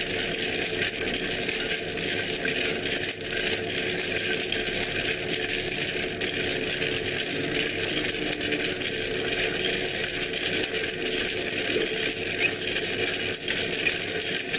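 Small motor spinning a metal rod, running steadily with a continuous rattle and a faint steady hum.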